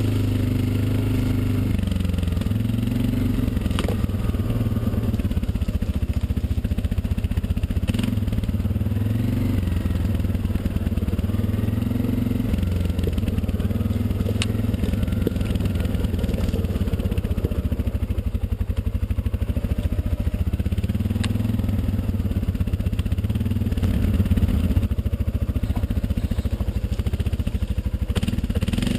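ATV engine running under way, its pitch rising and falling as the throttle changes, with a few sharp clicks.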